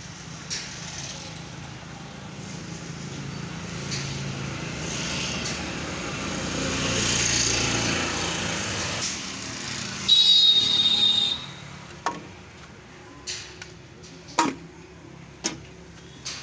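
Passing road-vehicle noise building up and fading, then a short high-pitched squeal about ten seconds in, followed by several sharp metallic clinks.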